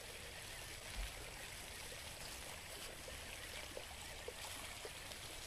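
Steady hiss of running water, with a few faint clicks and a soft low thump about a second in.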